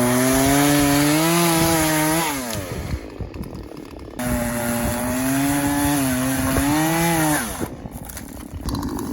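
Two-stroke gas chainsaw running at full throttle, cutting dry, dead elm wood. It winds down to a lower, quieter running about two and a half seconds in, comes back to full speed for about three seconds, then winds down again, picking up once more near the end.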